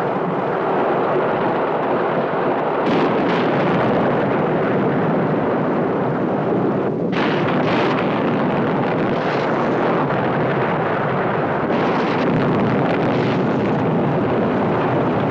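Film sound effect of a blazing forest fire: a continuous loud rushing noise, with sharper bursts about three seconds in, around seven to eight seconds, and again near twelve seconds.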